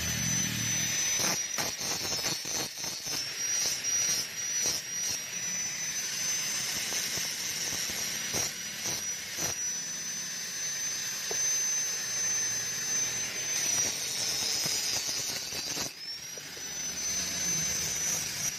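Angle grinder grinding the edge of a steel motorcycle brake disc: a steady high motor whine over a hissing, scraping grind. The pitch sags under pressure about three-quarters of the way through, then climbs back.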